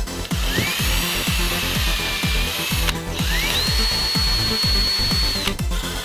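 Ryobi cordless driver driving screws into wood twice. Each time the motor's whine rises as it spins up, holds steady, then cuts off suddenly, and the second run is higher-pitched. Background music with a steady beat plays underneath.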